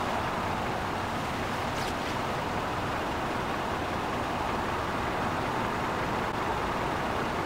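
Airbus A330-300 airliner's jet engines at takeoff power during the takeoff roll, heard from a distance as a steady, even jet noise.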